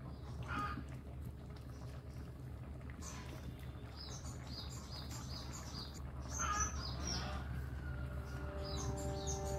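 Birds chirping in short, quickly repeated high notes from about three seconds in, over a steady low hum.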